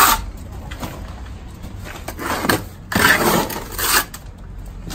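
Masonry trowel scraping wet stucco mix, spreading it over brick and scooping more out of a wheelbarrow: a scrape at the start, then several short scrapes between about two and four seconds in.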